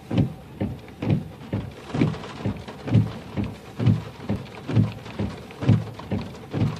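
Stormy rain with a regular low thudding, about two beats a second.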